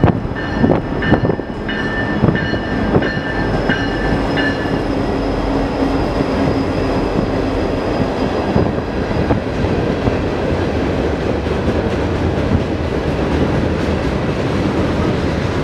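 Freight train rolling past close by: wheels clattering over the rails, with several high steady squealing tones and sharp clacks for the first four or five seconds, then a steady rumble of passing cars.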